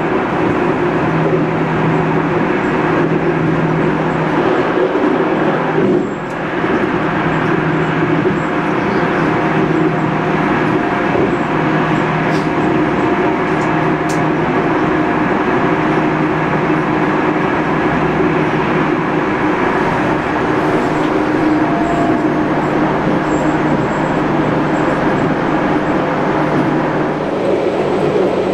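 Modernised SNCB AM80 electric multiple unit running along the line, heard from on board: a steady hum of the traction motors over rail and rolling noise, with a low hum tone that drops out and returns, and a short dip in loudness about six seconds in.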